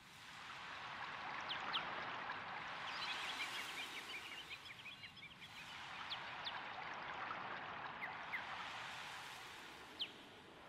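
Water from a small tabletop fountain trickling and splashing down stacked scallop shells into its basin, with scattered drips and small plinks. It fades in over the first second.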